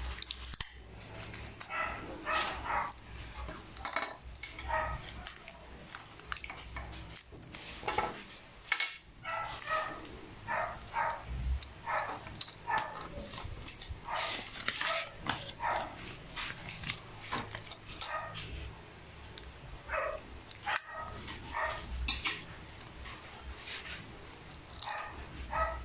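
A dog barking repeatedly in many short barks.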